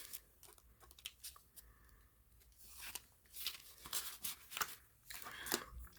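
Paper banknotes and a cash envelope being handled while money is counted: a series of short, crisp rustles and snaps.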